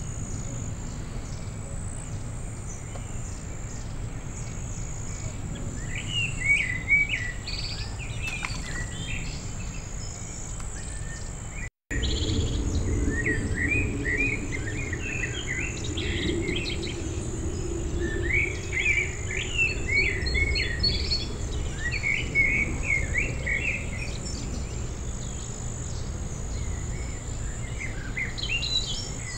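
A songbird sings short chirping, warbling phrases at intervals over a steady high-pitched buzz of insects. The sound cuts out for a moment about halfway through, and after that a faint low drone runs underneath for several seconds.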